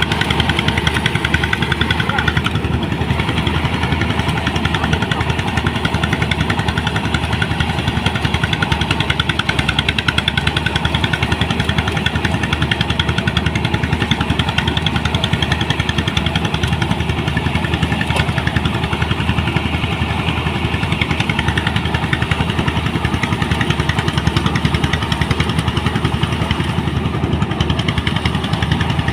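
Engine-driven rice threshing machine running steadily at a constant speed, a loud, even mechanical drone with a fast pulse.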